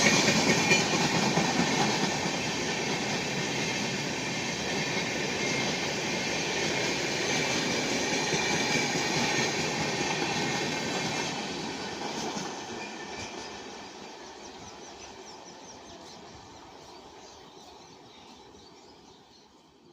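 Indian Railways express train's coaches rolling past on the track, wheels running over the rails. The sound steadily dies away as the train recedes and fades out near the end.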